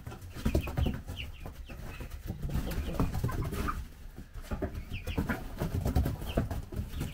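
A flock of young chickens (pullets) giving many short chirps and clucks, with scratching and scuffling in wood-shaving litter and a quick flurry of movement, typical of young birds jostling over the pecking order.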